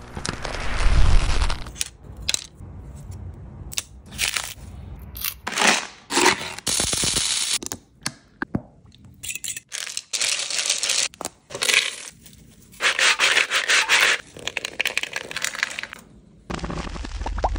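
A quick run of short food-prep handling sounds, one after another with brief gaps. Candies scrape and clatter on a metal sheet pan, thick sauce squirts from a squeeze bottle, and there are a few clicks and knocks of tray handling.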